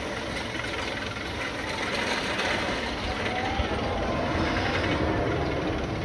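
Steel Vengeance hybrid roller coaster train rumbling along its track, a steady roar that builds over the first couple of seconds and then holds.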